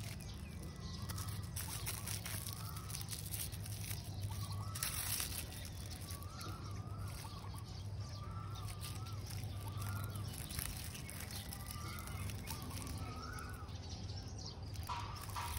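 A bird calling over and over in short notes that rise and fall, about one a second, with a few brief rustles of handling close by.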